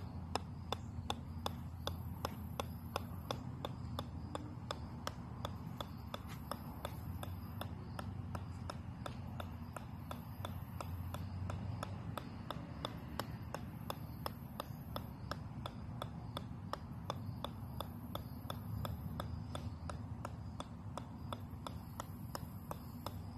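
Golf ball bouncing off the steel head of a 4-pound sledgehammer, a steady run of sharp clicks at about three a second.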